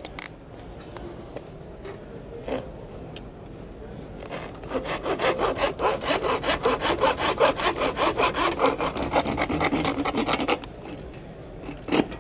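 Hand flooring saw cutting across a wooden strip-flooring board in rapid, even strokes, starting about four seconds in and stopping after about six seconds of sawing. A single knock follows near the end.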